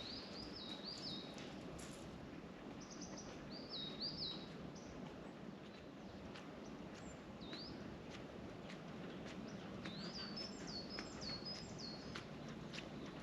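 A small songbird singing, with three short phrases of quick, high, down-slurred notes: at the start, about three seconds in, and around ten seconds in. They sit over a steady, low outdoor background noise.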